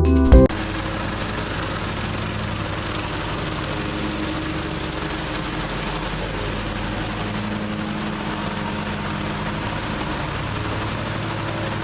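Ikon X52 riding mower's engine running steadily with an even firing pulse.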